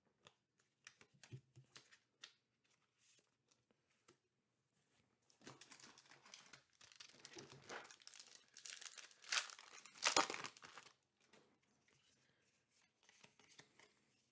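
A trading-card booster pack wrapper crinkling and tearing open, in a stretch of several seconds that starts about five seconds in and is loudest about ten seconds in. A few light taps of cards being handled come before it.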